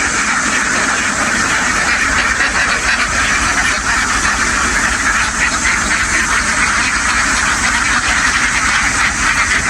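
A huge flock of domestic ducks quacking all at once, a dense, unbroken din, with a steady low rumble underneath.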